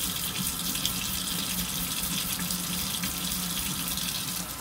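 Water running steadily from a tap while varnished nitro engine parts are washed.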